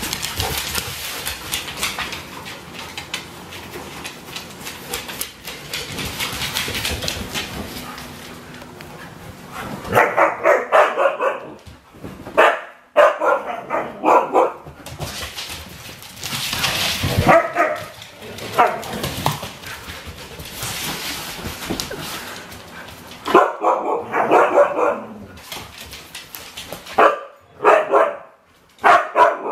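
Siberian huskies and a husky/German shepherd mix playing, with a busy noisy scuffle for about the first ten seconds, then repeated loud bursts of barking and play vocalising.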